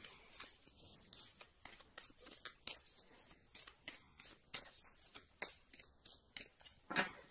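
A deck of tarot/oracle cards being shuffled by hand: soft, irregular clicks and slaps of the cards, two or three a second. Near the end there is a brief, slightly louder vocal sound from the reader.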